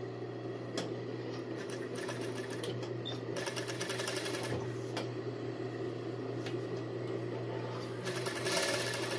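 Industrial sewing machine with a tape-binder attachment stitching binding tape onto the edge of a swimsuit piece, running in short runs of rapid stitching with brief stops as the fabric is guided. A steady hum sits underneath throughout, and the last run near the end is the loudest.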